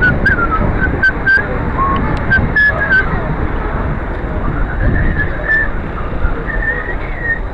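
A person whistling a tune in short, wavering notes, over a constant rumble of wind and handling noise on a handheld camera's microphone.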